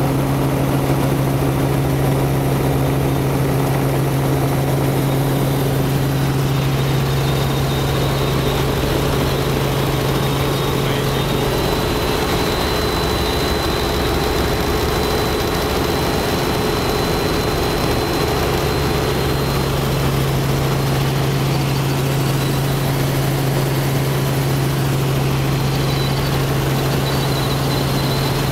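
Robinson R44 helicopter in flight, heard inside the cabin: the steady drone of the rotor and six-cylinder Lycoming piston engine. A strong low hum under it fades for several seconds in the middle and comes back.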